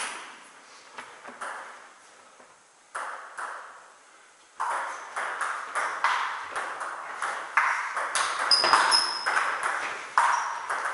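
Table tennis ball clicking off bats and the table: a few sparse bounces, then from about four and a half seconds in a fast rally of bat hits and table bounces, about two or three a second.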